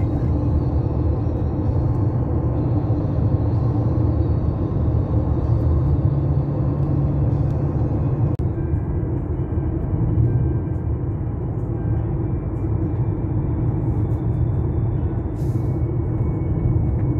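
Steady low rumble of tyre and engine noise inside a car's cabin, cruising at highway speed.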